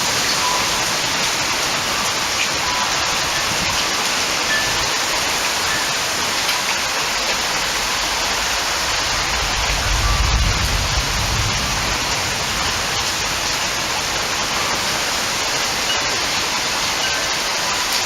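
Heavy rain falling in a steady, dense hiss. A low rumble swells briefly about ten seconds in.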